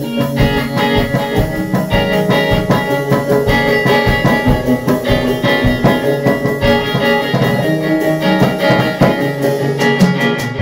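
Acoustic guitar played in a steady rhythm with rapid picked or strummed notes: an instrumental passage between sung verses of a folk-style song.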